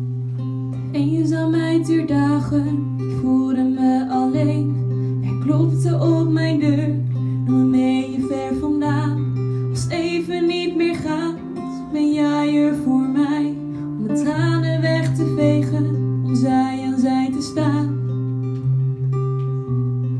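Acoustic guitar strumming chords while a woman sings a slow melody over it.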